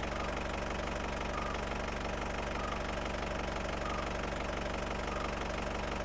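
An engine running steadily at idle, with an even fine pulse, and faint short high peeps repeating about once a second.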